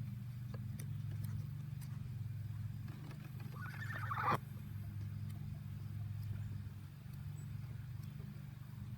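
A steady low hum throughout, with one drawn-out animal call about three and a half seconds in that rises and then cuts off sharply, and a few faint clicks.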